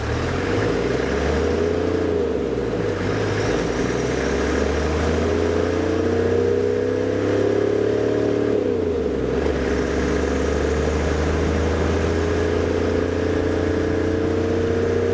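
Toyota LandCruiser Troop Carrier's engine driving along a sand beach, with wind and road noise, heard from a camera bolted to the vehicle's snorkel. Its pitch rises slowly, drops once about nine seconds in, then holds steady.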